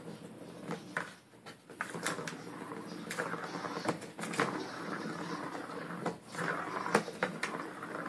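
A cat pawing at a plastic circular track toy with a cardboard scratch pad in the middle: the ball rolling and knocking in the plastic track, heard as irregular clicks and scrapes.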